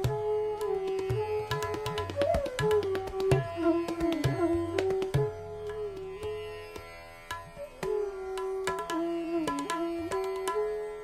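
Background music: a bansuri flute playing a slow, gliding melody in raga Bhopali over tabla strokes and a steady drone.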